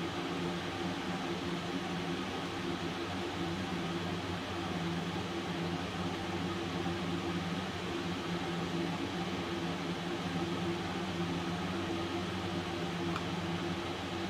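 Steady hum and whir of a small running motor, with a low droning tone that does not change.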